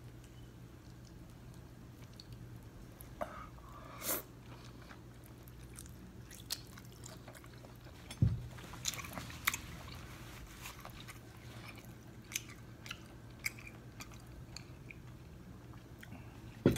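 Close-miked chewing and biting of saucy steamed lobster tail: wet mouth noises with scattered sharp clicks and lip smacks, and a louder low thump about eight seconds in.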